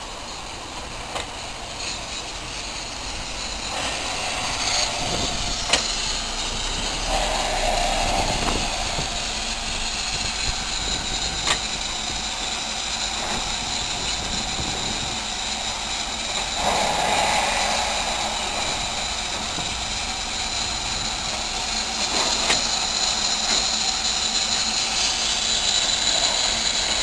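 Double Fairlie steam locomotive Merddin Emrys coupling up to its train: a steady hiss of steam, with occasional sharp metallic clanks.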